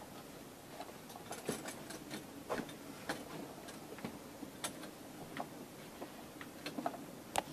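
Faint, irregular taps and knocks from footsteps and movement as people walk out through a doorway, in an otherwise quiet room.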